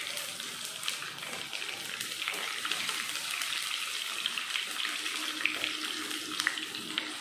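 Crushed garlic cloves sizzling in hot oil with tempered mustard and cumin seeds: a steady frying hiss with fine crackles, stirred with a wooden spoon.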